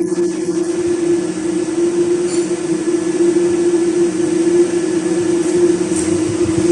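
Steady mechanical hum: an even rush of air with a constant mid-pitched tone and a fainter lower one, like a cooling fan running.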